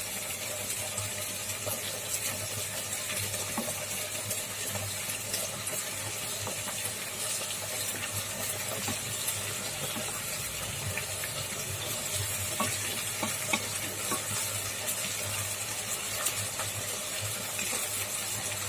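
Marinated chicken pieces sizzling in hot oil with ginger-garlic paste as they are stirred and turned with a spatula, with small scraping clicks against the pan.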